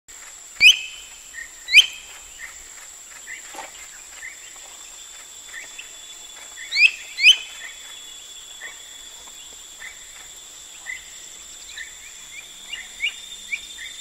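Bat hawk calling: two pairs of loud, sharp, upward-sweeping calls, the first pair near the start and the second about halfway through. Fainter short chirps repeat throughout, over a steady high-pitched insect drone.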